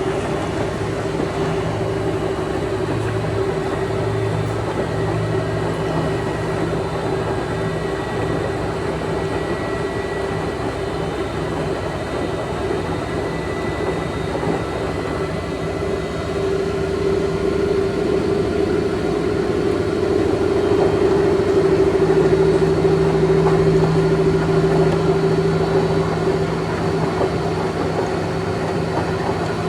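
Extra-large coin-laundry washing machine in its spin cycle, a steady rumbling hum with a droning tone that swells for several seconds about two-thirds of the way through, then eases.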